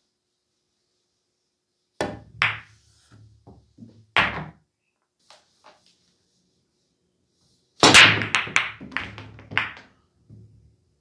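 Pool balls clacking: a few separate sharp ball strikes in the first half, then a 9-ball break about eight seconds in, a loud crack followed by a quick scatter of balls colliding and rattling for about two seconds.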